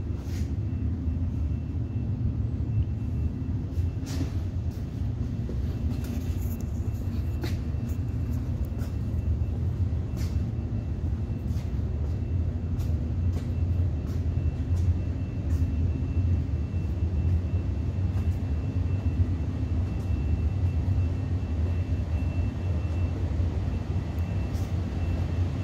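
Steady low mechanical rumble and hum with a faint, steady high whine above it, and occasional light clicks.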